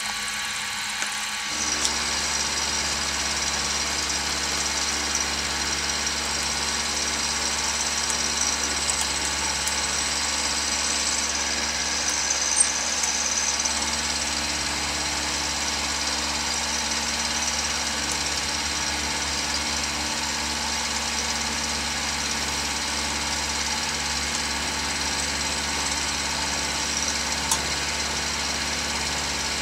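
Milling machine running, its end mill cutting a spiral groove into a steel log-splitter screw cone: a steady machining drone with a high whine, which comes up about a second and a half in, and a few small clicks.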